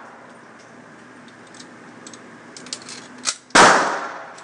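A single gunshot about three and a half seconds in, loud and sharp with a long echoing tail, preceded by a few light clicks. The fading echo of an earlier shot carries into the start.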